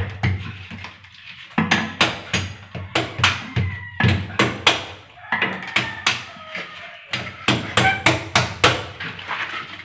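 Irregular sharp taps and knocks, one or two a second with short pauses, of a ceramic wall tile being tapped into line against a spirit level as it is set.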